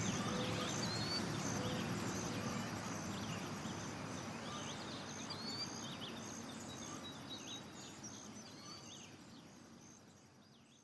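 Countryside ambience: many birds chirping, with short rising notes and a repeated high note, over a low steady background hum of the open country. The whole soundscape gradually fades out.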